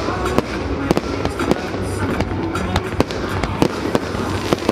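Fireworks display: aerial shells bursting in an irregular string of sharp bangs, about two a second, with music playing underneath.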